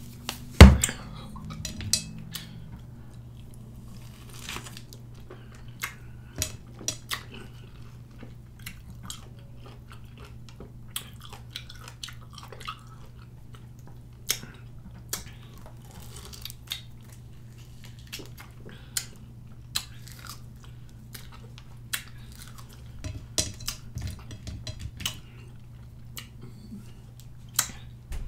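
Close mouth sounds of biting, sucking and chewing on salted lime and lemon wedges with hot sauce, a scatter of small wet clicks and crunches. One loud knock about half a second in.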